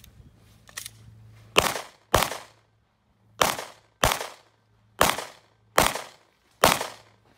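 Seven pistol shots fired at a stage course of fire, mostly in quick pairs about half a second apart, each with a short echo off the range.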